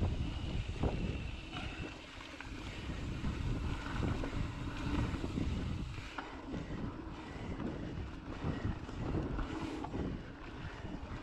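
Wind noise on the microphone of a mountain bike ridden along a dirt singletrack, with the rumble of the tyres over the dirt and a few sharp clicks and rattles from the bike, about a second in and again around six seconds in.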